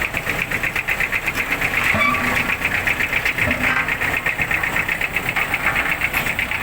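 Road construction machine's engine running with a rapid, even pulsing beat.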